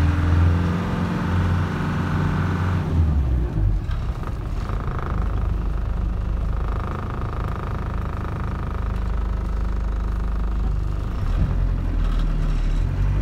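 Land Rover Defender 110's engine heard from inside the cab while driving slowly. The engine note drops about three seconds in, runs low and steady, then rises again near the end.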